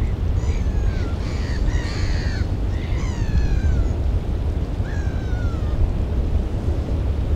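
Gulls calling: a run of short, falling calls in the first four seconds and one more about five seconds in, over a steady low rumble of wind on the microphone.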